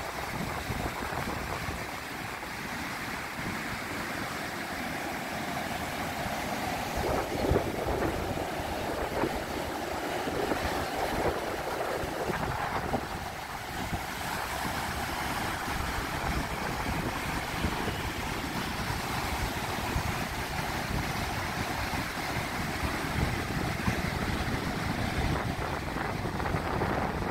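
Ocean surf breaking and washing up the beach as a steady roar, with wind buffeting the microphone.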